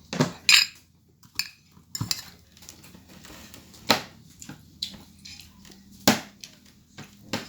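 Cutlery clinking against a dish during a meal: several separate sharp clinks at irregular intervals.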